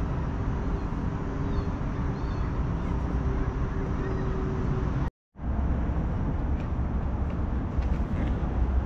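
Steady outdoor background rumble with a faint steady hum in its first half; the sound cuts out completely for a moment about five seconds in, then the rumble returns a little heavier.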